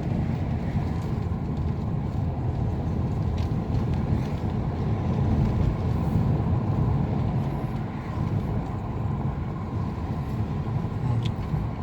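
Mercedes-Benz C220d rolling over a rough road, heard from inside the cabin with the driver's window down: a steady low rumble of tyres and running gear. No chirping or cricket-like squeak from the front suspension is heard, the sign that the new control arm has cured it.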